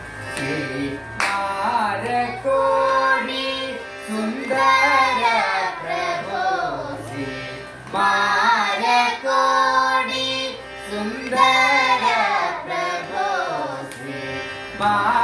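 A group of children singing a Carnatic music lesson together in short phrases, with a harmonium holding steady notes underneath.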